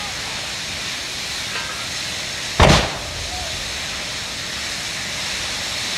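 A burning beer delivery truck: a steady roar and hiss of the fire, broken about halfway through by one sharp, loud bang as something bursts in the heat, which the onlooker takes for beer kegs exploding.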